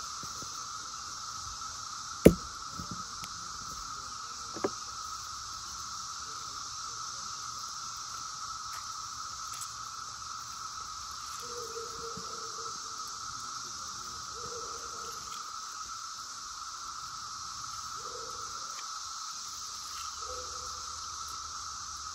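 Cicadas singing in a steady drone throughout. A sharp knock comes about two seconds in and a smaller click a couple of seconds later. Faint soft squishes follow later as lemon halves are squeezed by hand over a glass jug.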